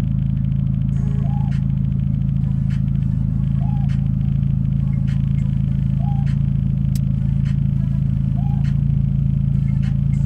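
Car engine idling, heard from inside the cabin as a steady low hum while the car stands still. A short, rising-then-falling tone repeats about every two and a half seconds over it, with a few faint clicks.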